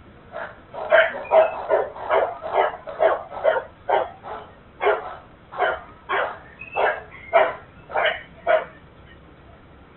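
A dog barking repeatedly, a run of about eighteen short barks at roughly two a second that stops about a second and a half before the end, heard thinly through a security camera's microphone.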